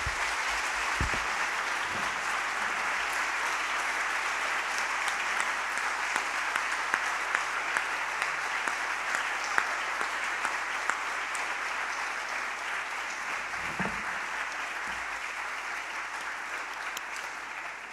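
Audience applauding, many hands clapping together in a dense, steady patter that eases off slightly near the end.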